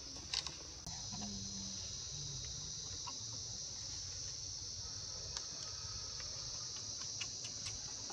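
Steady high-pitched drone of insects, a continuous chorus that swells about a second in, with a few faint clicks over it.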